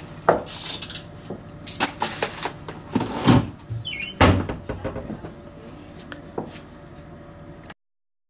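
Kitchen handling noises at an oven: a run of knocks and clatters from the oven door and a roasting pan, the two heaviest about three and four seconds in, with a brief squeak between them. The sound cuts off suddenly near the end.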